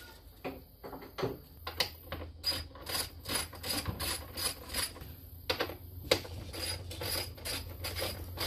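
Hand socket ratchet clicking in runs as it works fasteners in a Jeep Wrangler JK's engine bay, with a short pause about five seconds in.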